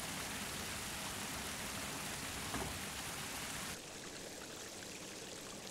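Stream water running into a hydroelectric supply canal at an inlet, a steady rushing hiss that turns quieter and duller about four seconds in.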